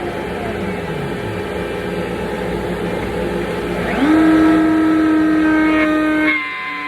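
Shop vacuum running steadily. About four seconds in, a router motor spins up with a quick rising whine into a loud, steady whine, which steps slightly lower in pitch near the end.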